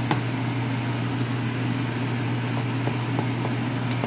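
A steady low hum, with faint sizzling of fermented rice sautéing in oil in a skillet and a few light taps and scrapes of a spatula against the pan.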